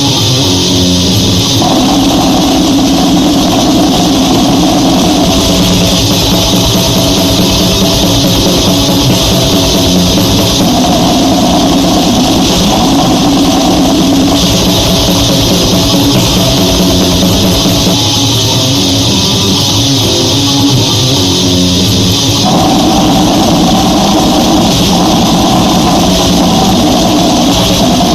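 Goregrind music: loud, distorted guitar riffs over fast drumming, the riff changing about two seconds in, again near the middle, and about three-quarters of the way through.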